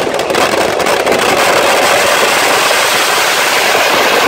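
Fireworks packed into a burning Dussehra effigy going off so densely that, after a few separate cracks at the start, they merge into one loud, steady roar of crackling and hissing.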